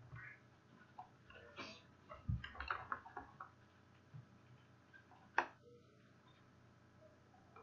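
Scattered faint clicks and light knocks in a quiet room, with one sharper click about five seconds in.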